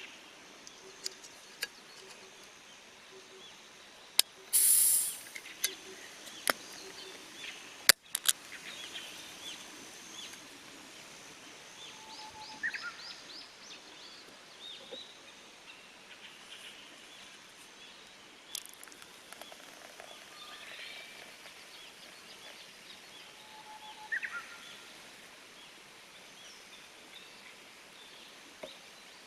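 Forest birds chirping and trilling over a charcoal cooking fire, with scattered sharp clicks and knocks and a brief loud hiss about five seconds in.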